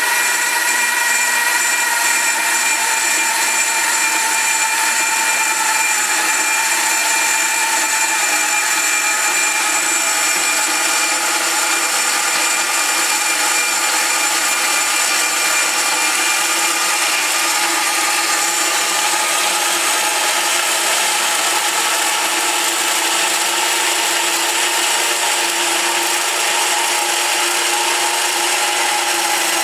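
Rox Machinery RB-125 5-inch band saw running steadily through a long cut, a continuous sawing sound whose pitched tones sink slowly lower as the cut goes on.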